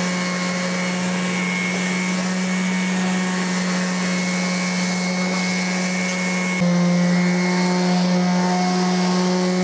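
Yasuka electric orbital sheet sander with 80-grit paper running steadily against a wooden table top, together with a vacuum cleaner drawing off the sanding dust. The sound steps up a little louder about two-thirds of the way through.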